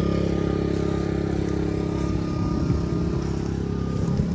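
A small petrol engine running steadily, growing rougher and less even in the second half.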